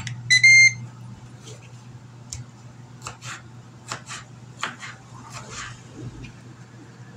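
A Ninja Foodi Grill beeps once, about half a second in, and its fan runs with a steady low hum as it heats up. Over the hum, a serrated knife slices through a tomato and taps on a plastic cutting board at uneven intervals.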